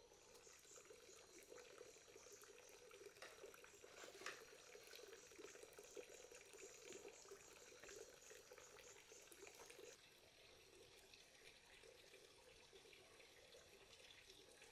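Faint running water, as from a tap at an outdoor sink, with a few light knocks; it drops away about ten seconds in.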